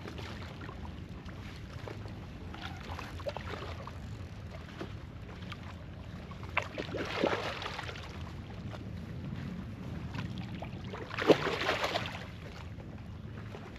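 Water sounds around a fishing kayak, with wind on the microphone and a steady low rumble. There are two louder splashy bursts, about seven and eleven seconds in, the second starting with a sharp knock.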